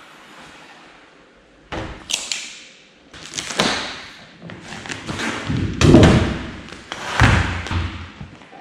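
A run of irregular thumps and knocks with rustling in between, starting about two seconds in and loudest about six seconds in, as race-car door panels are handled during vinyl graphics installation.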